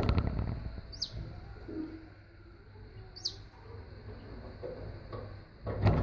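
Canary giving two short, high chirps that slide downward, about two seconds apart. A sudden knock comes right at the start, and a louder clattering noise begins near the end.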